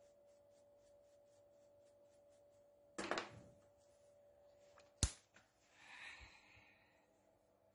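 Quick, soft paintbrush strokes sweeping sawdust across a milled wooden board on a CNC router bed, over a faint steady hum. About three seconds in there is a clatter as the brush is set down on the bed. About two seconds later a sharp knock, the loudest sound, cuts the hum off, and a short rustle follows.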